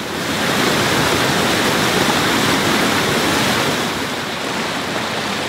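Fast-flowing mountain river rushing steadily over rocks and rapids, close by.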